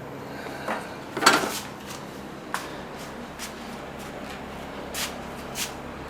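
A handful of light clicks and knocks from tools being handled, with a short clatter a little over a second in as the loudest.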